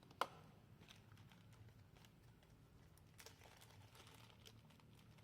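Small parts handled on a workbench: one sharp click a fraction of a second in, then faint scattered ticks and taps.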